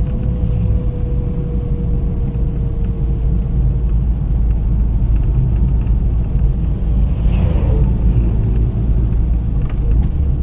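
Toyota Corolla EE100 driving along the road, heard from inside the cabin: a steady low rumble of engine and road noise. A faint tone slowly falls over the first few seconds, and a brief hiss swells and fades about seven seconds in.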